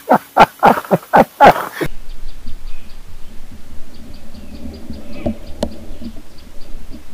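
Laughter in quick repeated bursts, cut off about two seconds in. Then a quiet outdoor background follows, with faint, quickly repeated bird chirps and one sharp snap a little past the middle.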